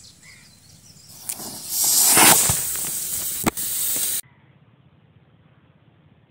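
Homemade sugar rocket motor on a toy jet igniting and firing: a hiss that swells about a second in into a loud rushing hiss for about three seconds, with one sharp crack partway through, then cuts off suddenly.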